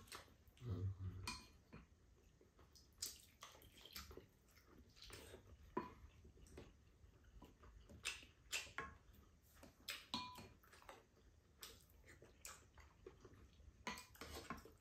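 Quiet eating at a table: scattered light clicks and taps of spoons and chopsticks against bowls and a frying pan, with faint chewing in between.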